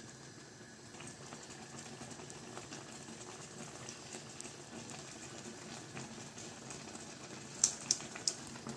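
Spicy tteokbokki sauce with ramen noodles simmering in a large pan: a low, steady bubbling. A few short clicks stand out near the end.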